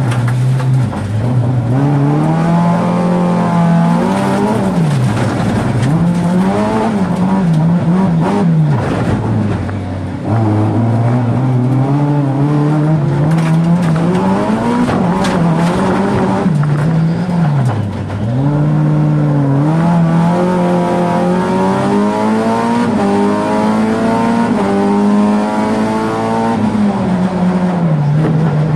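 Rallycross race car's engine heard from inside the cabin under hard racing, its pitch repeatedly climbing and then falling away as the driver shifts gears and lifts for corners, with brief dips in level around ten and eighteen seconds in.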